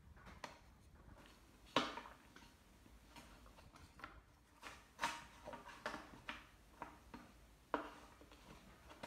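Wooden puzzle pieces knocking and clicking against a wooden puzzle board as they are handled and fitted into place: a dozen or so light, irregular taps, the sharpest about two seconds in and just before eight seconds.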